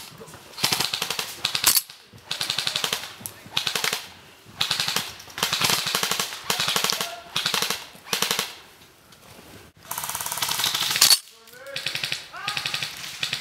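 Airsoft guns firing on full auto: about ten bursts of rapid shots, each half a second to a little over a second long, with short pauses between them.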